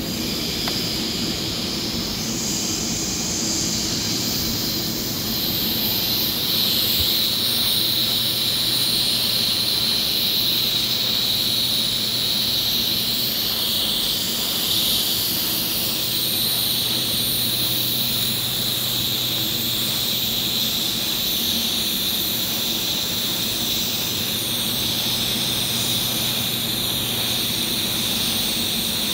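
TIG welding arc on carbon steel pipe making a steady high hiss while filler rod is fed in, with a steady low hum underneath.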